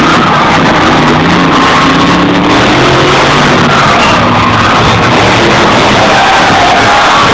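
Loud rock music at a constant level, with no break.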